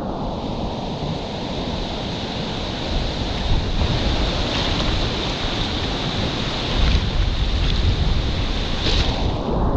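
River water rushing around a whitewater kayak as it drifts toward a rapid, with wind rumbling on the microphone.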